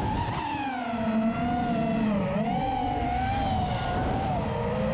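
Quadcopter's electric motors and propellers whining, the pitch wavering up and down as the throttle changes, over wind rumble on its onboard camera's microphone.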